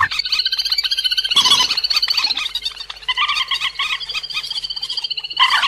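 Bird-trapping lure recording of the cuốc biển, a waterbird of the rail family, giving a continuous run of rapid, high, chattering calls.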